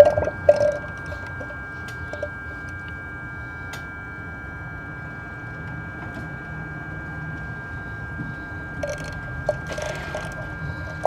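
BMW E46 inline-six idling, with the power steering pump running and a steady high whine over the engine hum, while the newly filled power steering system is bled of air. A few short knocks come near the start, and a brief clatter about nine seconds in.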